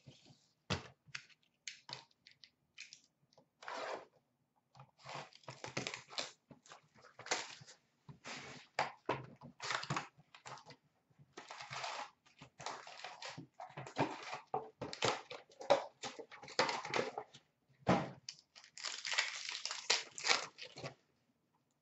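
A hobby box and foil packs of hockey trading cards being opened and handled by hand: irregular tearing, crinkling and rustling of wrappers and card stock, a few sharp clicks early on giving way to denser rustling later.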